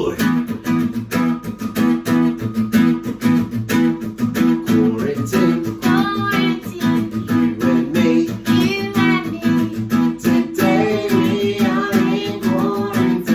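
Music: an acoustic guitar strummed in a steady rhythm, with a singing voice entering about five seconds in.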